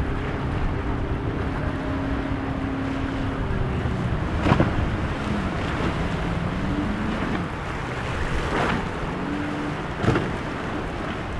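Regal powerboat's engines running through rough inlet water, their pitch holding and then rising and falling as the boat works the waves, over wind on the microphone and surf. Two sharp knocks stand out, a little before halfway and near the end.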